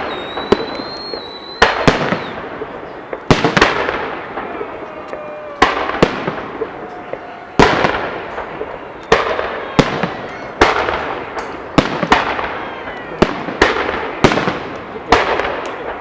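Fireworks salute shells bursting overhead, a sharp bang about every one to two seconds, each followed by a fading crackle.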